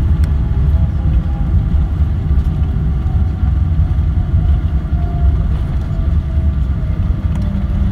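Steady low rumble in the passenger cabin of a Boeing 777-300 rolling along the ground after landing, the airliner's engine and rolling noise heard from a window seat.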